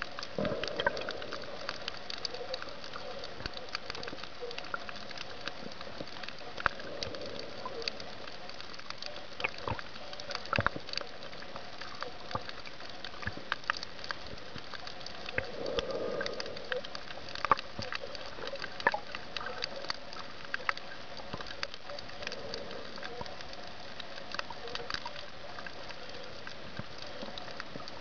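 Underwater ambience picked up by a submerged camera: a steady hiss full of irregular sharp clicks and crackles, with a couple of soft muffled swells of water noise, one near the start and one about halfway through.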